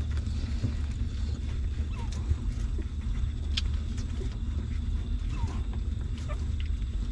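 Newborn puppies nursing from their mother: faint wet suckling clicks and a few brief squeaks from the pups, over a steady low rumble.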